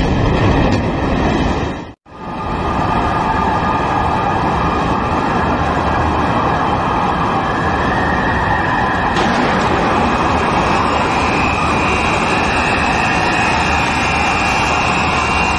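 Loud, steady roar of a low-flying jet airliner's engines and the rumble of its crash into a skyscraper, with a harsher high whine joining about nine seconds in. The sound cuts out for an instant about two seconds in.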